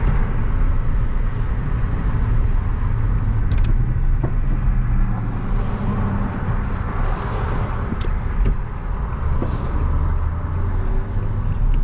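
Engine and road noise of a manual-transmission car under way, heard from inside the cabin as a steady low rumble, with a few light clicks.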